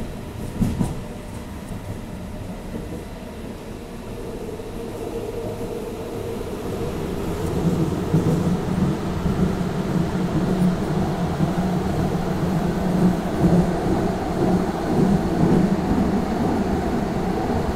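Tram running on its rails, heard from inside the car, with a single sharp knock just under a second in. About seven seconds in the running noise grows louder and deeper as the tram enters a tunnel.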